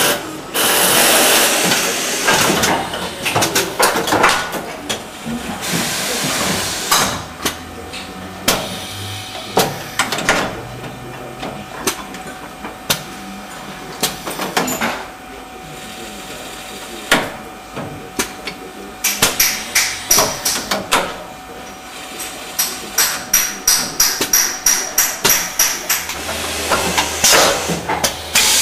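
Automated rotary-table assembly and leak-test machine running: repeated sharp mechanical clacks and knocks over a steady hiss of air, with a run of rapid regular clicking, about three a second, in the second half.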